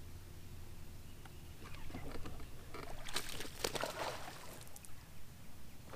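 Water splashing beside a bass boat in a short, crackling flurry, densest about three seconds in, over a faint low hum.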